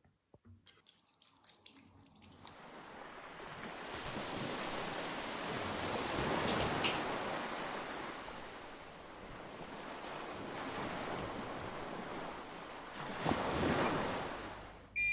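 Water running from a bathroom mixer tap into a sink: a steady rushing hiss that comes on about two seconds in, swells and eases, then swells again near the end.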